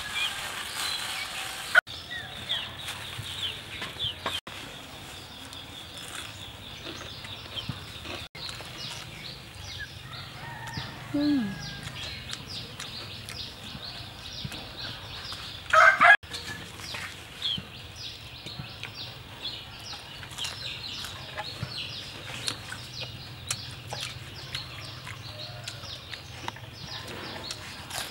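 Chickens clucking and calling in the background, with many short high chirps and one short, loud call about halfway through.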